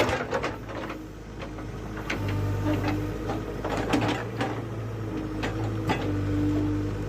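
JCB 3DX backhoe loader's diesel engine running steadily, getting louder about two seconds in, with scattered short knocks from the work.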